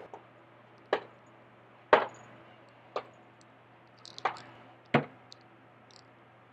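Five sharp knocks spaced roughly a second apart, not quite evenly, over a faint steady low hum.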